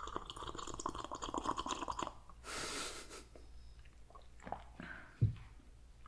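Close-miked sipping and swallowing of ginger ale from a mug, a dense wet crackle for about two seconds, followed by a short breathy hiss. Near the end come a few light knocks and a sharp thump.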